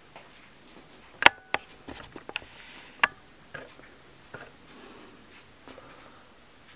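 A few sharp clicks and light knocks of hard objects being handled, with the loudest about a second in and another about three seconds in.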